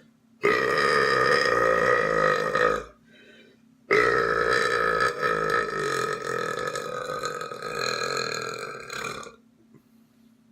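A person belching: two long, loud burps, the first a little over two seconds, the second over five seconds and slowly getting quieter toward its end.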